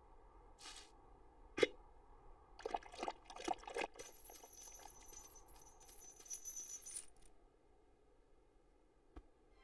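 Faint metallic clinking on the soundtrack: one sharp clink about a second and a half in, a quick cluster of rattling clinks around three seconds, then a thin high shimmering ring lasting about three seconds.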